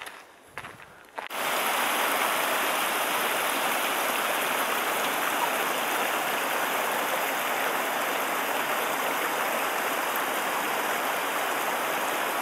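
Steady rush of a mountain stream, cutting in suddenly about a second in after a few faint steps.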